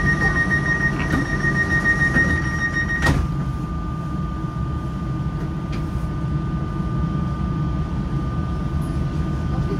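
Z 20900 electric train heard from aboard: a steady rumble with two high, steady whines. A sharp clunk comes about three seconds in, and the higher whine stops at it while the lower one carries on.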